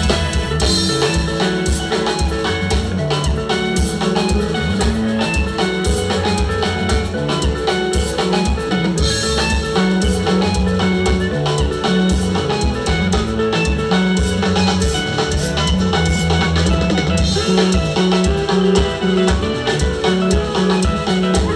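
Live band playing upbeat dance music, a drum kit keeping a steady beat under guitar, bass and keyboard.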